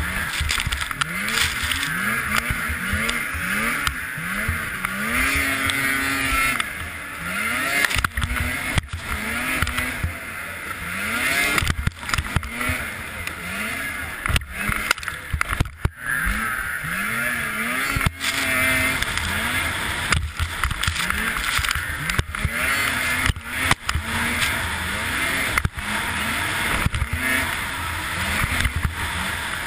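Racing snowmobile engine revving up and down over and over, its pitch rising roughly once a second as the throttle is worked through the bumps, over a steady rush of wind on the sled-mounted camera. The sound drops out briefly several times.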